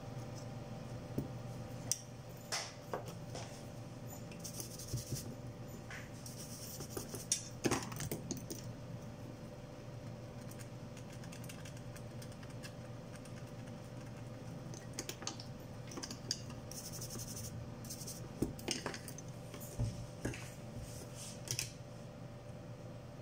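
Scattered small clicks, taps and scrapes of a power-supply circuit board and hand tools being handled on a workbench while a replacement capacitor is fitted, over a steady low hum.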